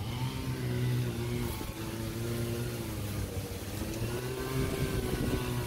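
Chainsaw cutting up a fallen tree, its engine note holding steady and then dipping and rising a few times as the saw is throttled through the wood.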